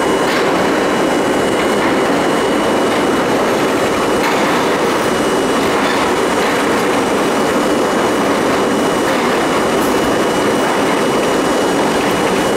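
Budd-built R32 subway car running at speed through a tunnel, heard from inside the front car: a steady loud rumble and rattle of wheels on rail, with a thin high steady whine running underneath.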